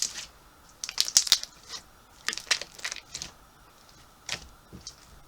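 Elmer's GUE slime being rolled and squeezed in the hands, with clusters of small sharp pops and clicks as trapped air bubbles burst, three bursts in all.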